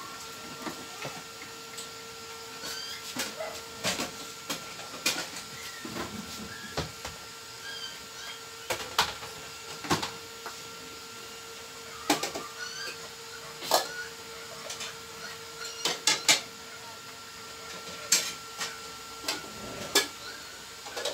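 Scattered clicks and knocks of hands handling the wiring and parts of an opened microwave oven, coming irregularly about every second or two, over a steady hum.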